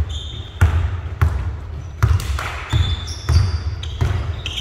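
Basketball dribbled on a court, about six bounces at a steady pace with a deep thump on each. Short high sneaker squeaks come in between.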